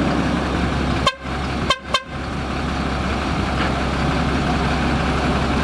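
Diesel engine of heavy earthmoving machinery running steadily, a low, even drone. It cuts out briefly about a second in and twice more just before the two-second mark, with a click at each gap.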